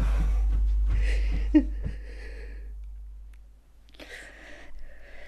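A woman's tearful breathing and sniffing, with a sharp intake about one and a half seconds in, over a low hum that fades out by about three and a half seconds.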